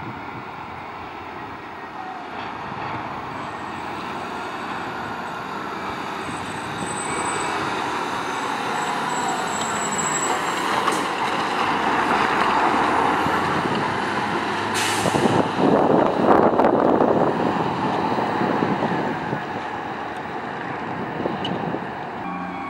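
Heavy fire truck engine running and growing louder as the truck nears, loudest about twelve to seventeen seconds in, then fading. A short sharp hiss of air brakes comes about fifteen seconds in.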